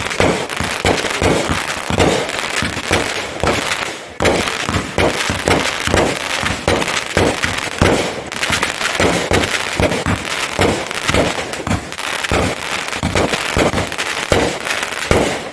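Fireworks going off, a dense, irregular run of pops and crackles, many a second, with a brief lull about four seconds in.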